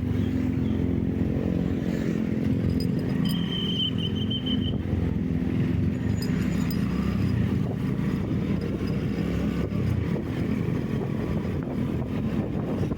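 Engine and road noise of a vehicle cruising steadily, with a short high-pitched tone about three seconds in.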